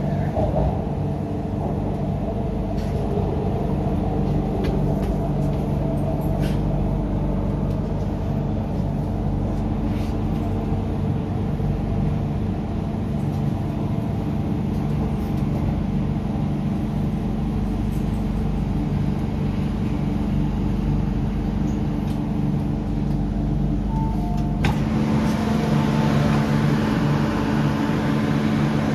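Inside an MTR Island Line Q-Train car: the steady hum and rumble of the electric train running. Near the end a short two-note tone and a clack come as the doors open onto the platform, and brighter station noise comes in.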